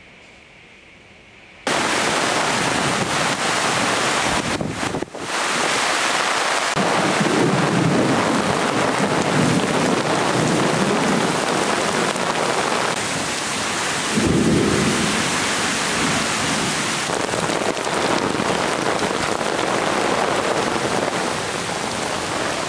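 Torrential thunderstorm rain pouring down in a loud, steady hiss that starts suddenly about two seconds in. Low rumbles of thunder swell under it twice, around a third of the way in and again past the middle.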